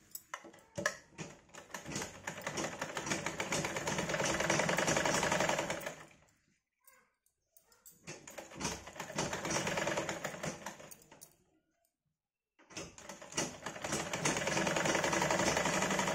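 Sumeet sewing machine stitching in three runs, about six, four and four seconds long, with short pauses between them. Each run builds up to a fast, even stitching rattle.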